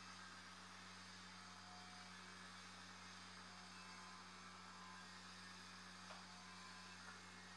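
Near silence: a steady low hum under faint hiss, with one faint tick about six seconds in.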